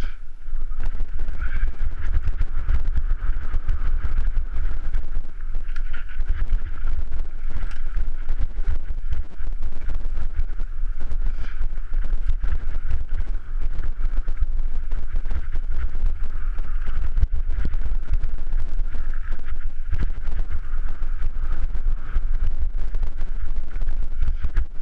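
Wind buffeting the microphone of a mountain bike descending a rough dirt trail, with a steady run of small rattles and knocks from the bike over the bumps.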